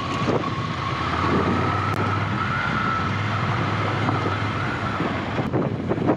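Ducati Scrambler's L-twin engine running at a steady pace over a bumpy, sandy dirt track. A steady high whine rises slightly and fades about five seconds in, and a few knocks from the rough surface come near the end.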